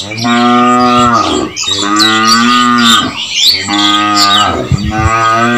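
Cattle mooing: four long calls in a row, each about a second and a half, each dropping in pitch at its end.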